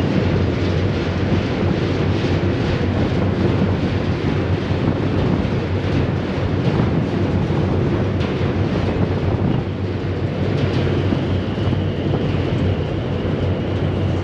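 Car ferry under way: a steady low rumble of the ship with wind rushing over the microphone. A faint high whine joins about ten seconds in.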